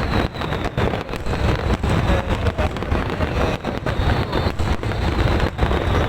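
Fireworks bursting in rapid, irregular bangs over a continuous low rumble, with wind buffeting the microphone.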